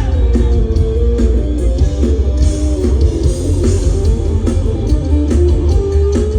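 A rock band playing live: electric guitar lines over a heavy bass and a steady drum beat, with no singing in this stretch.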